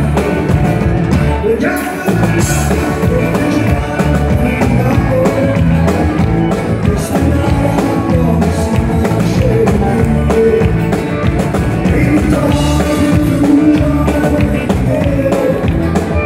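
Live country band: a male lead voice singing over strummed acoustic guitar, fiddle and drums.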